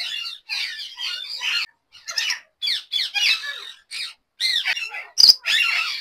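A collection of captive parrots, ring-necked parakeets and lovebirds among them, squawking and screeching over one another in short, overlapping shrill calls, with one louder call about five seconds in.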